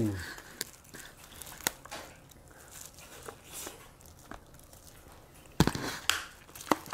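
Close-up eating sounds of spicy marinated crab being chewed and picked apart: scattered small clicks and crunches of shell, with a louder knock and clatter about five and a half seconds in.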